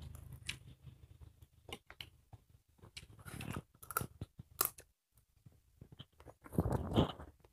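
People chewing and eating with their hands close to lapel microphones: wet mouth smacks, crunches and sharp little clicks, scattered and irregular, with a louder burst near the end.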